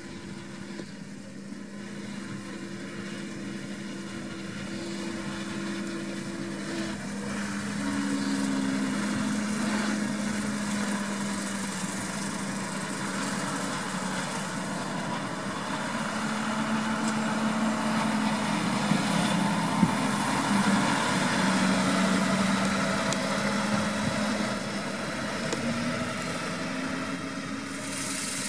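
John Deere 6215R tractor's six-cylinder diesel engine running steadily under working load, growing louder as the tractor comes closer and passes. Its note shifts in pitch a few times.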